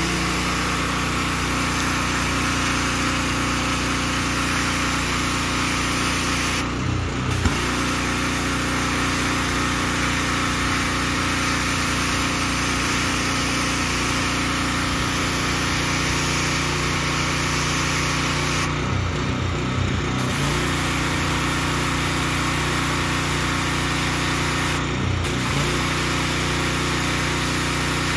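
Pressure washer with a small engine running steadily, with the hiss of the high-pressure jet spraying across brick pavers. The spray hiss drops out briefly three times, and the engine note shifts each time.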